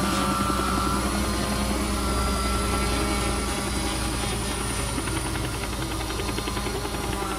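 Helicopter rotor sound effect played by an RC quadcopter, steady and continuous, mixed with the whine of the quadcopter's motors.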